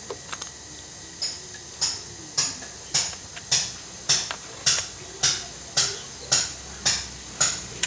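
Steady metal-on-metal tapping during work on a washing-machine gearbox: about a dozen sharp, briefly ringing strikes at a little under two a second, beginning about a second in.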